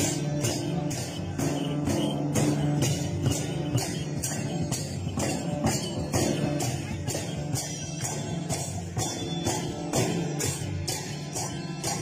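Music with jingling metal percussion keeping a steady beat of about three strikes a second over sustained low tones.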